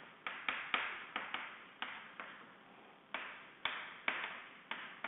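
Chalk tapping and clicking against a blackboard while writing: about a dozen sharp, irregularly spaced strokes, with a short gap about two seconds in.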